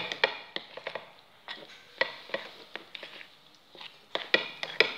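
Metal spoon stirring thick wheat-flour batter in a ceramic bowl, with irregular clinks and scrapes against the bowl's side.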